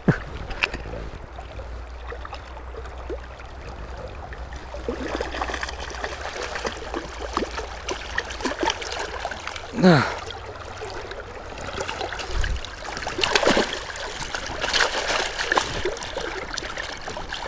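River current rushing and lapping around a wading angler's legs, with splashing as a hooked trout thrashes at the surface beside the landing net before it is netted.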